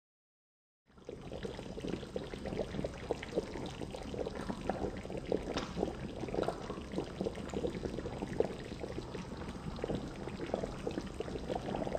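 Thin catfish curry bubbling in a metal pan: a dense, irregular run of small pops and gurgles that starts about a second in.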